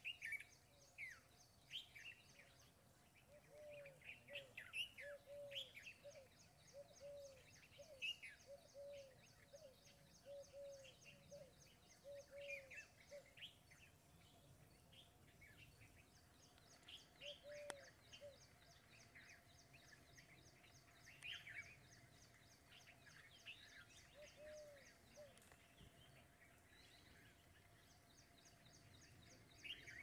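Faint mixed birdsong from several birds: scattered short, falling chirps, and a low note repeated steadily in a run about one to two times a second. Under them runs a fast, high, even ticking trill, typical of an insect, that comes and goes.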